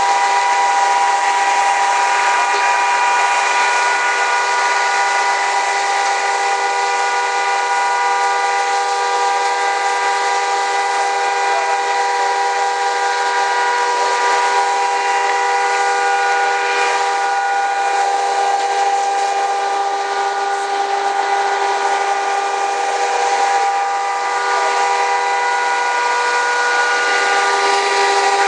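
Fire-fighting equipment working on a large building fire: a steady loud hiss with several constant whistling, whining tones over it, unchanging throughout.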